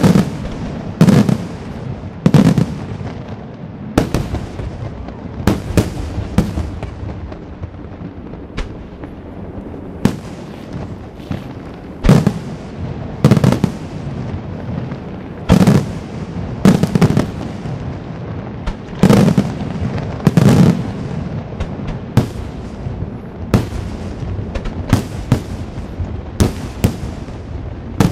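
Aerial firework shells from a La Rosa professional display bursting in steady succession: loud bangs about one a second, each followed by a rolling echo.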